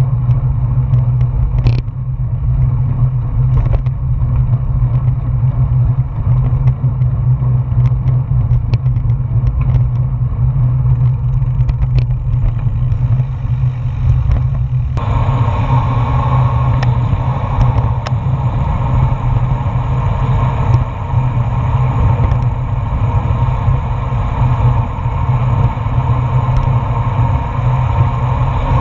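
Wind buffeting the microphone of a GoPro on a moving road bicycle: a loud, steady low rumble. About halfway through the sound changes abruptly and becomes brighter and hissier.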